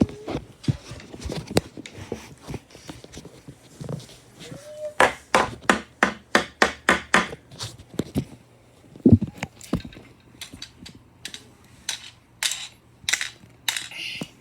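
A ceiling fan with a Lego build attached, clattering as the hard plastic pieces knock and break. A low motor hum comes in partway through. A fast run of sharp clacks follows, about four or five a second for a couple of seconds, then scattered knocks and a heavier thump.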